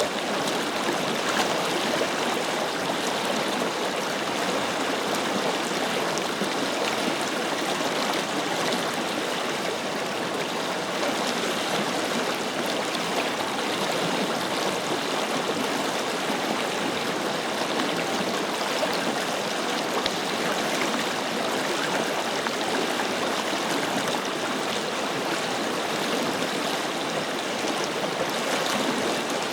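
Forest river flowing: a steady, even rush of running water with fine gurgling, unchanging throughout.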